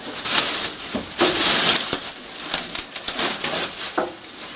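Clear plastic wrapping crinkling and rustling as a large wrapped figure is gripped and shifted inside a cardboard box, with a few sharper knocks among the rustle.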